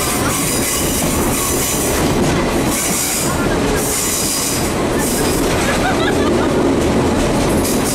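Sagano Romantic Train's open-air coach running on its rails, a loud steady rumble of wheels and running gear with several bouts of high squealing hiss from the wheels. The train passes into a tunnel partway through.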